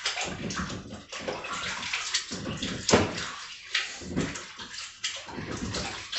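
Kitchen faucet running into a sink while hands are washed under it, with water splashing unevenly. A sharp knock about three seconds in is the loudest sound.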